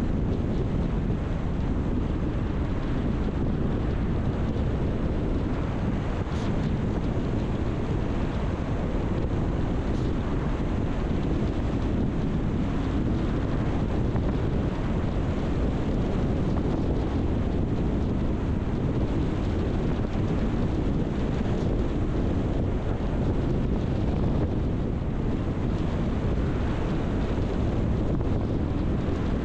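Steady low rumble of a car on the move: tyre and road noise with the engine underneath, holding even throughout.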